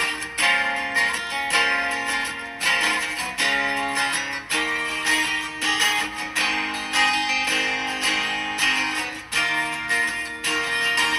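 Background music: an acoustic guitar strumming chords in a steady rhythm, with no singing.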